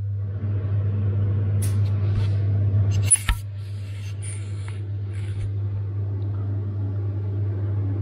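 Steady low hum, with light handling rustle and a few small clicks, one sharper click about three seconds in.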